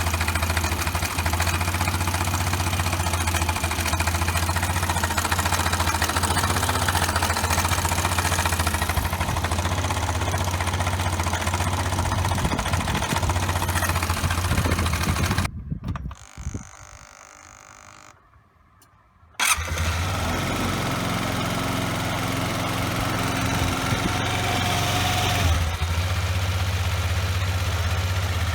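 Suzuki Address V125 scooter's single-cylinder four-stroke engine idling steadily with a low hum. It cuts out a little past halfway, then is running again about four seconds later.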